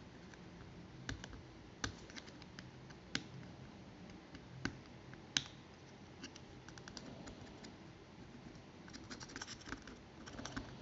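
Faint, irregular scratches and clicks of the green solder mask being scraped off a printed circuit board, thicker toward the end.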